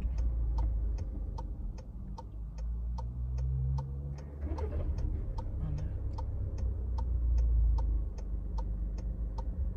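A car's turn-signal indicator ticking steadily, about two and a half clicks a second, heard inside the cabin over the low rumble of the engine and road.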